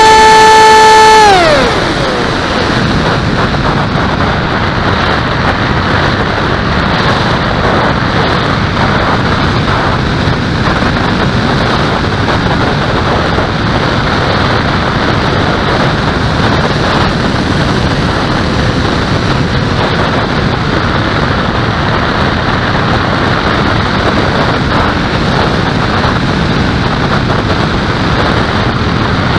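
A steady motor whine drops in pitch and stops about a second in. Then a steady rush of wind over the onboard camera as the aircraft glides.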